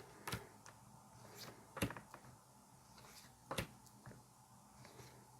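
Tarot cards being handled on a table: about four faint, sharp clicks and light taps spread through a quiet room.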